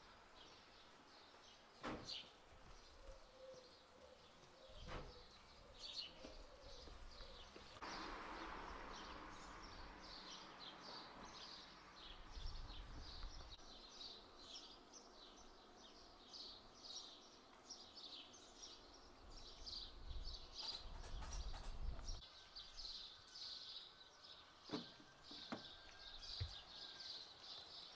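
Small birds chirping and singing continuously, faint, with a few sharp clicks, a short stretch of hiss about eight seconds in, and low rumbles now and then.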